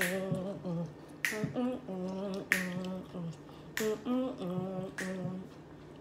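A woman humming a tune with closed lips, snapping her fingers about every second and a quarter in time with it.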